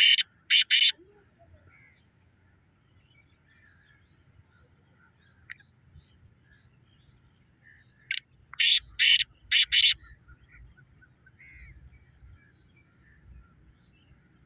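Caged black francolin (black partridge) calling: a series of short, harsh, high notes, one brief note followed by four louder ones, about eight seconds in, with the last notes of another call at the very start.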